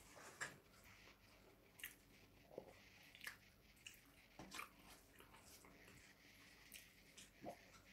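Faint wet eating sounds: chewing and lip smacks along with fingers squishing rice and curry on a steel plate, a handful of short, irregular clicks spread across a quiet background.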